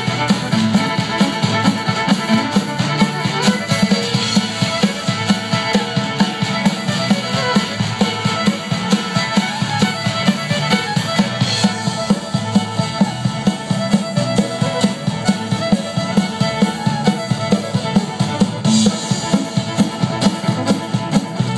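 Live fiddle dance music with drum kit backing, with a quick steady beat.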